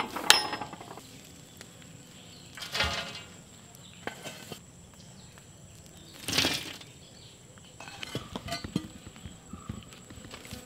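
Glowing charcoal being shoveled onto the metal lid of a large biryani pot for dum cooking: separate spills of clinking, clattering coals and a metal shovel scraping, the loudest about six seconds in, with a run of small clinks near the end.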